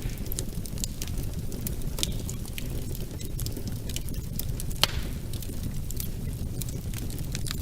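Wood fire burning in a fireplace: a steady low rumble of flames with irregular crackles and pops from the burning wood, the sharpest pop about five seconds in.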